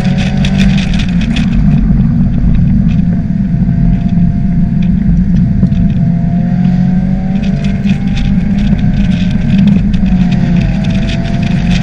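A motor vehicle driving on the road: a steady engine and road drone whose pitch slowly rises and falls, dipping and then climbing again near the end.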